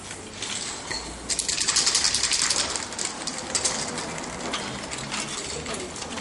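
Aerosol spray-paint can being shaken, its mixing ball rattling in a rapid run of clicks, loudest for a couple of seconds and then fainter.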